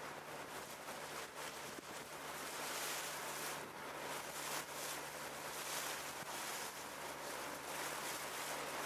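Boat engine running with a steady low hum, under a continuous rush of water and wind on the microphone as the boat moves.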